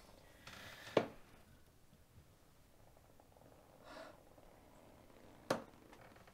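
Quiet room with two sharp clicks about four and a half seconds apart, each coming a little after a soft breath.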